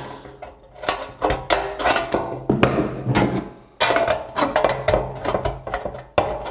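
Hand-held aviation snips cutting along a painted sheet-metal gutter: a quick run of sharp clicks and crunches, several a second, as the blades close stroke by stroke. Background music plays underneath.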